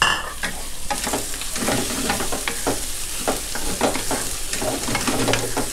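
Shrimp, chicken and shiitake mushrooms sizzling in oil in a stone-coated frying pan, stirred with a wooden spatula that scrapes and knocks against the pan in quick, irregular strokes over a steady sizzle.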